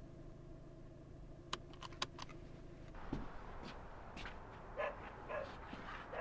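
A few sharp clicks, like a car door latch, over the steady low hum of a parked car's cabin. Then, in open outdoor air, light steps and three short barks.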